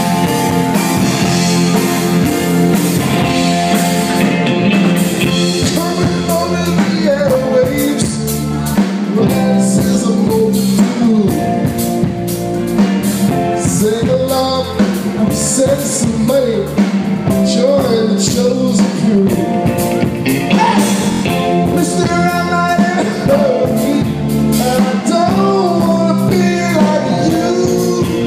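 Live rock band playing an instrumental passage: electric guitars, bass and drum kit, with a lead line that bends and slides between notes over a steady low bass note.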